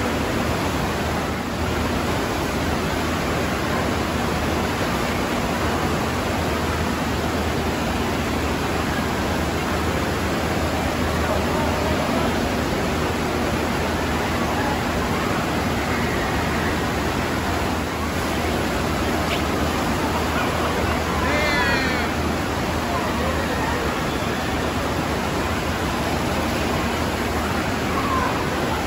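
Steady rushing of water pumped up the sheet-wave surface of a FlowRider wave simulator.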